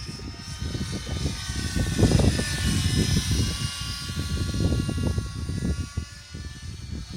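GAUI NX4 radio-controlled helicopter flying, its rotor and drive whine made of several high tones that dip and rise in pitch about two to three seconds in. Strong gusty wind buffets the microphone.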